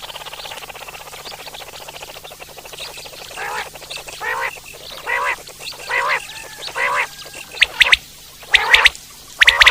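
Common quail calling: a fast rattling purr, then a series of about six nasal notes roughly one every 0.8 seconds, then loud sharp calls near the end.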